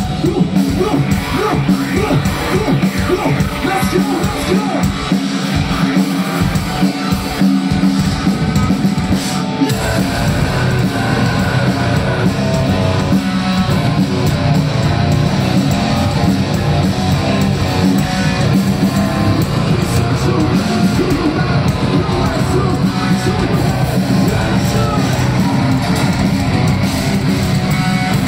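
Live heavy band playing loud, with distorted guitars, bass, drums and a vocalist. For the first ten seconds or so the low end cuts in and out in stop-start hits, then the band plays on without breaks.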